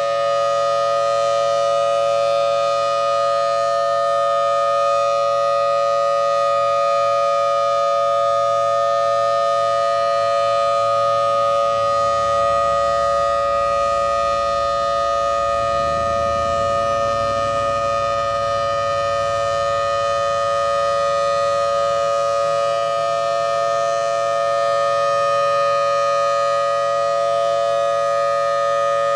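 Federal Thunderbolt 1003 civil defense siren sounding a full alert: one steady, unbroken tone at an even level. It holds without the usual rise and fall of a turning horn, because the horn's rotator is broken and the horn stays fixed. A faint low rumble comes and goes in the middle.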